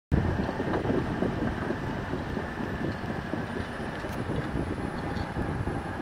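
Diesel engines of a bulldozer and a tracked excavator running with a steady, rough rumble.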